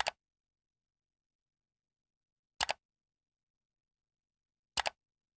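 Three computer mouse clicks, about two and a half seconds and two seconds apart, each a quick double tick of the button pressing and releasing, clicking the eye icons that hide notebook cells.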